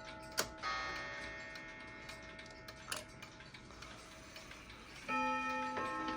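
Girod wall clock ticking steadily while its chime plays. A struck chord rings and slowly fades early on, then new chime notes of different pitches start in quick succession about five seconds in.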